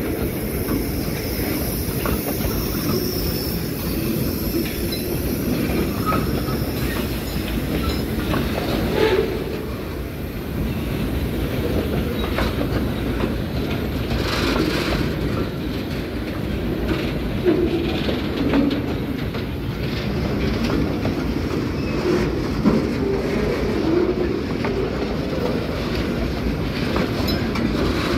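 Railway oil tank wagons rolling slowly past, with a steady rumble of steel wheels on the rails and clicking as the wheels cross rail joints. A few brief wheel squeals stand out, mostly in the second half.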